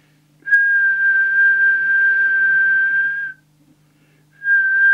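A steady whistle held at one pitch for about three seconds, then a second whistle starting about four and a half seconds in, each over a hiss and stopping abruptly. This is the whistle test used to set the FM transmit deviation of the Planet 2000 CB radio.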